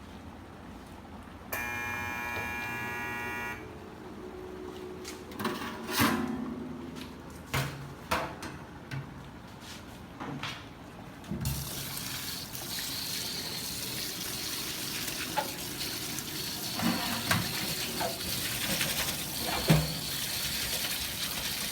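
A buzzing tone sounds for about two seconds, followed by a few knocks and clatters. About halfway through, water starts running steadily, as from a tap, with occasional knocks over it.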